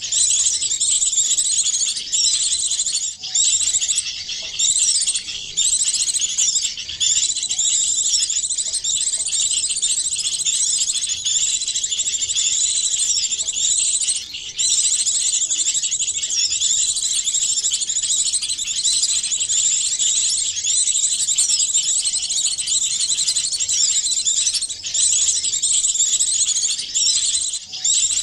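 Small songbirds twittering and chirping high-pitched, many calls overlapping into a dense unbroken chorus with a few brief breaks. It is a bird-lure call recording mixed from several small birds' calls, made to draw small birds in.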